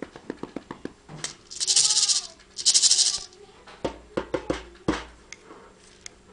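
A rattle shaken in two short bursts, each about half a second long, with light ticking and tapping around it and two soft thumps in the second half.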